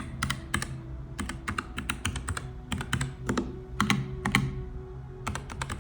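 Typing on a Nuphy Air60 low-profile mechanical keyboard with Gateron Brown switches: irregular key presses, a few a second, each a short sharp click.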